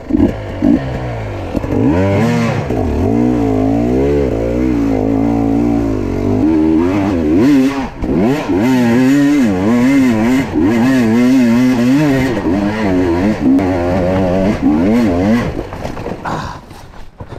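Enduro motorbike engine revving up and down in quick, uneven bursts of throttle, with clattering knocks from the bike; it dies away near the end.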